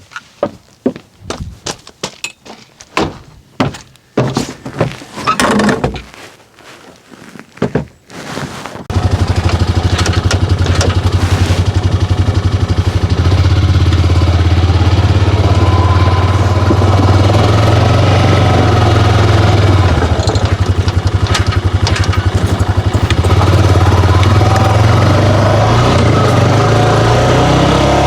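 Several seconds of irregular knocks and clatter, then about nine seconds in a Honda 500 side-by-side's engine is heard running steadily with a low pulsing note.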